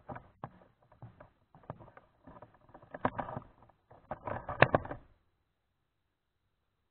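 Irregular close-up knocks, clicks and rustling, the handling noise of the camera being moved, growing louder and then cutting off suddenly about five seconds in.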